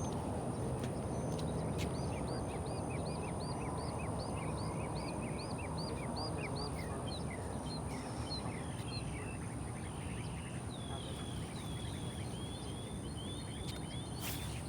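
A songbird repeating a short high call note about two or three times a second for several seconds, then breaking into looser twittering, over a steady low outdoor noise.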